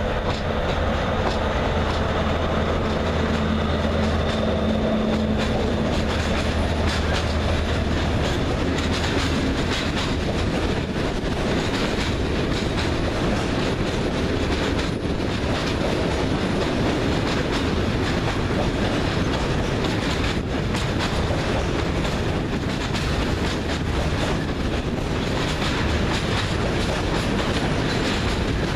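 A Fret SNCF BB 75000 diesel locomotive passes close by, its engine droning for roughly the first ten seconds. A long train of container wagons follows, rolling past with a steady rail noise and light clattering over the joints.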